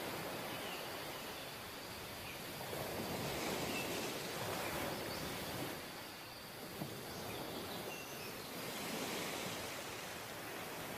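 Sea surf breaking and washing up a sandy beach: a steady rush of water that swells louder and eases off with the waves.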